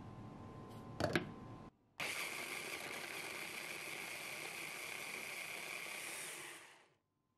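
A small electric blender with a chopper bowl runs steadily, puréeing oats, strawberries, banana and honey into a smoothie. It starts about two seconds in and stops abruptly near the end. A short knock comes about a second in, before the motor starts.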